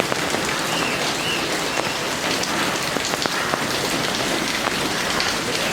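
Heavy rain falling steadily, a dense hiss of drops with many small ticks of drops striking surfaces.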